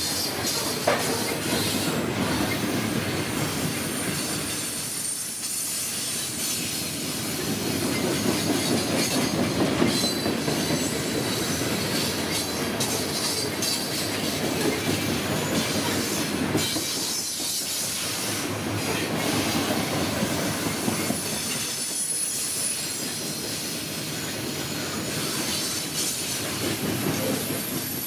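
Loaded coal hopper and gondola cars rolling past at trackside: a steady rumble and clatter of steel wheels on rail that swells and fades as each car goes by. Faint high wheel squeal comes and goes.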